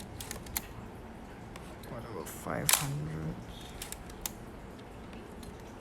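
Yashica TL-Electro 35mm SLR's shutter and mirror firing once at 1/500 s, a single sharp click about two and a half seconds in, during a shutter-speed test. A few lighter clicks come before it as the camera is handled.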